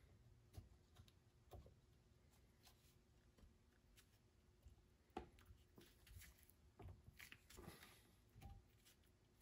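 Near silence with faint, scattered clicks and light scrapes: a new water pump base being slid down over the mounting studs of a stern drive.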